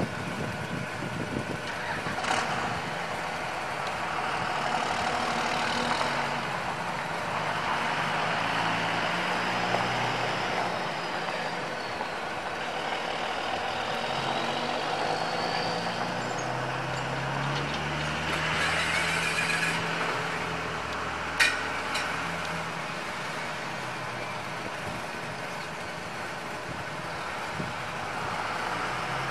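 The 1996 Ford F350's 5.8-litre V8 gas engine running steadily, with one sharp click about two-thirds of the way through.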